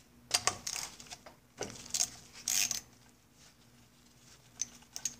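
Metallic clinking and scraping of a hand tool and small parts on a Johnson 9.5 HP outboard powerhead while its fuel pump is unbolted. It comes in two short busy spells in the first three seconds, then a couple of light clicks near the end.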